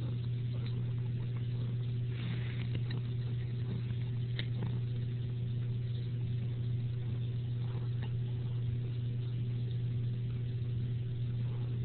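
A steady low hum, with a few faint scrapes and light taps and one sharper tick about four seconds in.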